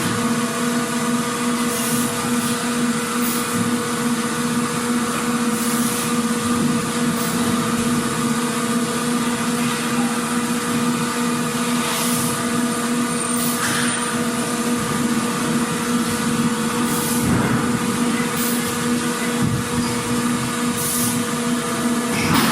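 Factory machinery running: a steady hum with a constant low tone and a fainter higher one over a wash of mechanical noise, with scattered short knocks every few seconds.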